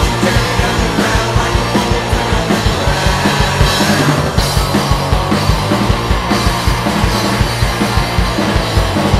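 Psych-punk rock band recording playing full out, with dense guitar-and-bass sound over a steady driving drum beat.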